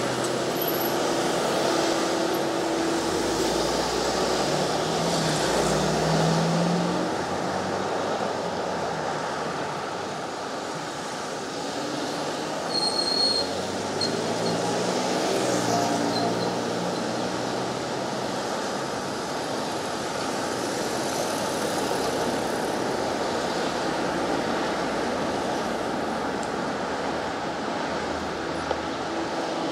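City street traffic: a steady rush of passing cars and engines that swells and fades a little as vehicles go by.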